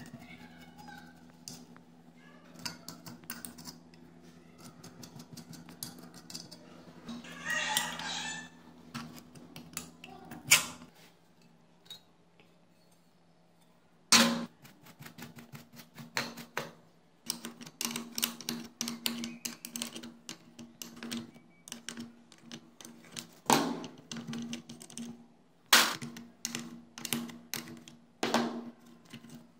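Parts of an old electric blower being taken apart by hand on a workbench: scattered metal clicks and knocks that grow denser after a brief lull, a few of them louder, over a steady low hum.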